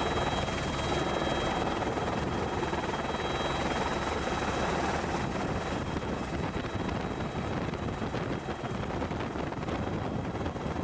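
Helicopter heard from inside the cabin in flight: steady engine and rotor noise with a thin, steady high whine over it.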